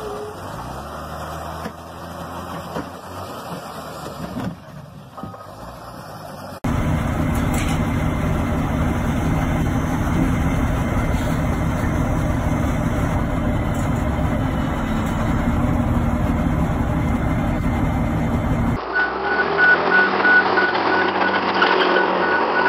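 Heavy diesel machinery running in three separate stretches. First a loaded logging truck's engine is heard. Then a container reach stacker's engine runs loud and steady for about twelve seconds as it lifts the stack. Last, excavators are heard with a repeated high beeping alarm.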